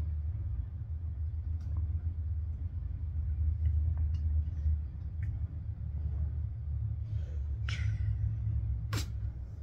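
A steady low rumble while a child drinks from a plastic water bottle, with a short airy hiss about eight seconds in and a single sharp click about a second later.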